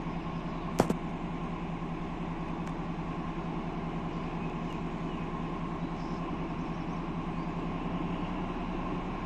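Diesel locomotive idling in a rail yard: a steady, unchanging engine drone with a constant low hum. A single sharp click about a second in.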